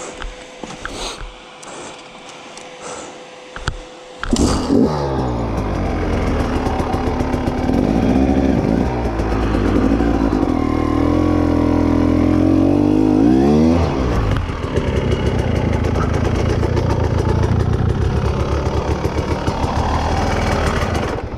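Husqvarna 300 TE two-stroke enduro engine starts suddenly about four seconds in, after a few scattered knocks. It is revved up and down several times, then settles into steady running.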